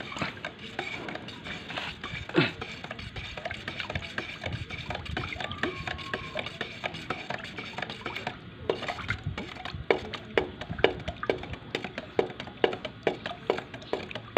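A flat stick stirring thick gray epoxy primer and its catalyst in a metal gallon paint can, with a steady run of irregular knocks and scrapes against the can's sides and bottom and one louder scrape about two and a half seconds in.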